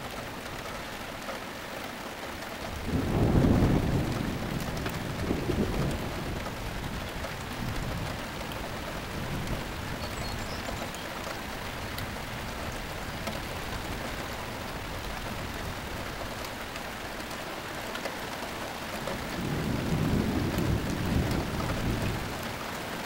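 Steady rain falling through a thunderstorm, with thunder rolling twice: a low rumble about three seconds in that lasts a few seconds, and another near the end.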